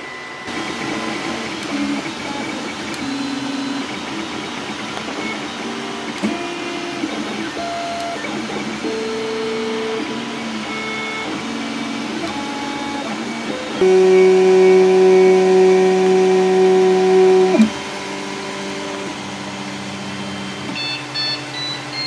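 3D printer's stepper motors whining in steady tones that jump to a new pitch with each move of the print head, over a steady hiss. One held tone, in the middle, is the loudest part. Short high beeps come near the end.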